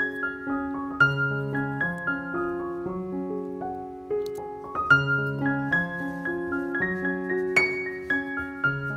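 Background piano music: notes that start sharply and fade, played over held lower chords.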